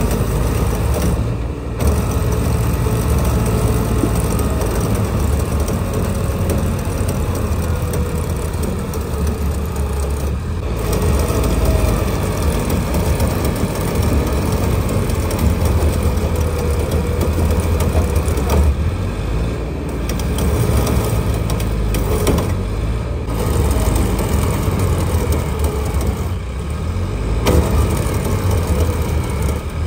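Combine harvester's diesel engine running steadily, with a continuous mechanical clatter from its working parts, while the machine sits stuck in mud.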